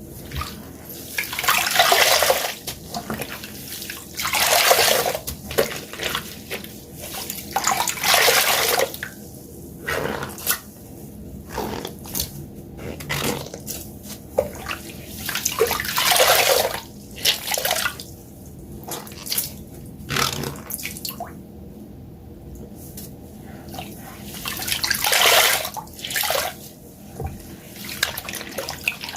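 Wet sponges squeezed again and again, water gushing out and splashing down in bursts, with trickling and dripping between the squeezes.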